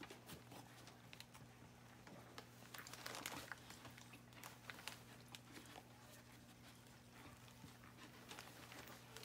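Faint crinkling and rustling of paper whelping bedding, with scattered small clicks and a busier patch about three seconds in, over a low steady hum.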